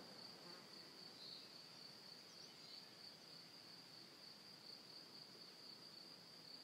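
Near silence with a faint, steady, high-pitched insect trill.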